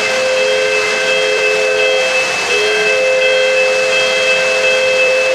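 Lionel O-gauge model locomotive's sound system blowing a chord steam whistle in two long blasts, the second starting about two and a half seconds in, over the steady rumble of the train running on the track.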